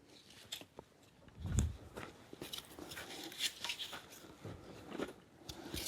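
Yurt's concertina lattice wall being stretched out by hand: scattered clicks, crunches and rustles, with a dull thump about a second and a half in.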